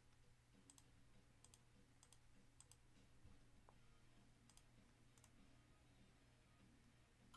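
Near silence: faint, irregular clicks of a computer mouse over a low steady hum.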